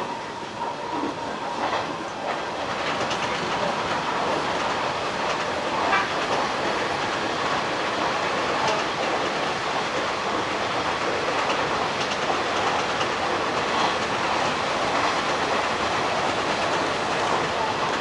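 Hanshin 1000 series electric train running at speed, heard from the cab: steady rumble of wheels on rail with clickety-clack clicks at the rail joints. It grows louder over the first few seconds, then holds steady.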